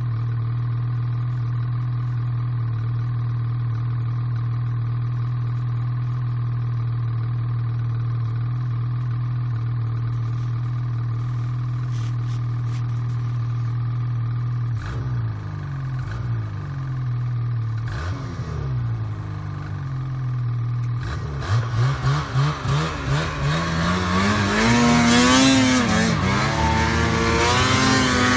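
Two-stroke mountain snowmobile engine idling steadily, then revved in short blips about halfway through as the rider rocks the sled in deep snow. In the last third it is revved hard in pulses, climbing in pitch as the sled pulls away through powder, with a rushing hiss of thrown snow near the end.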